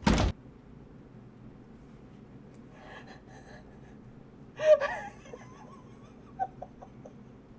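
A short, sharp loud sound right at the start, then a mostly quiet stretch broken by a loud gasp about four and a half seconds in.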